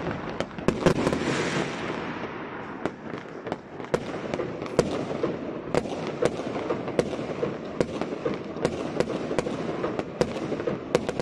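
Fireworks going off all around: many sharp bangs at irregular intervals over continuous crackling from overlapping bursts, thickest about a second in.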